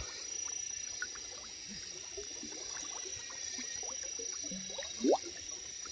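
Marsh ambience over shallow water: a steady high insect drone, with scattered small water plops and chirps, and one louder rising chirp about five seconds in.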